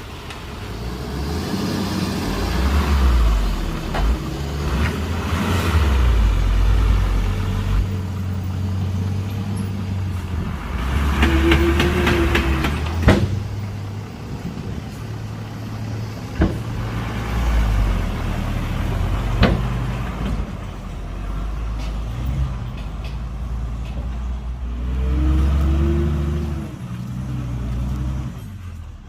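Heavy diesel earthmoving machinery working: engines rising and falling under load, with a few sharp clanks and a brief whine twice.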